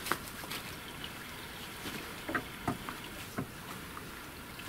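Campfire embers crackling, a few scattered soft pops over a steady outdoor hiss.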